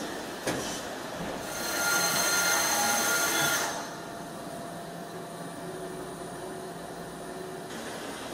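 Large 5-axis bridge gantry milling machine running: a sharp click about half a second in, then a loud hissing stretch of about two seconds, after which the machine settles to a quieter steady running sound.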